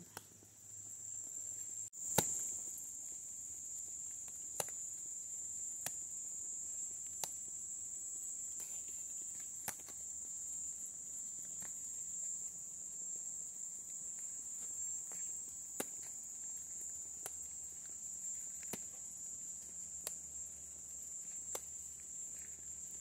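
Crickets trilling steadily in one continuous high-pitched band, with occasional short sharp clicks every second or two.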